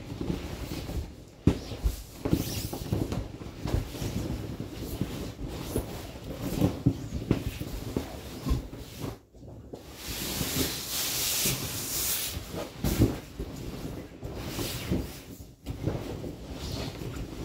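Large inflated vinyl pool toy being lain on, pushed and turned over by hand: irregular rubbing, scraping and bumping of the taut vinyl, with a longer steady hissing rub a little past halfway.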